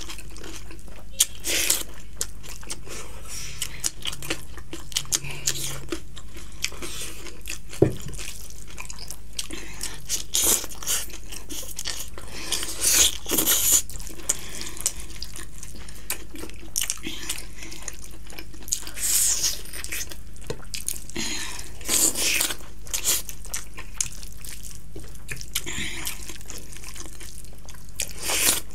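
Close-up eating sounds of two people eating rice and chicken curry with their hands: wet squelches from fingers working the rice, and chewing and lip smacks. These come in scattered short bursts over a steady low hum.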